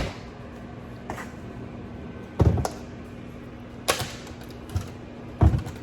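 Irregular sharp knocks and clacks of kitchen items being handled, about seven of them, over the steady low hum of a microwave oven running.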